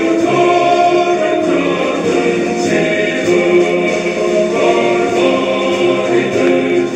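A choir singing Orthodox church chant, several voices together holding and changing sustained notes.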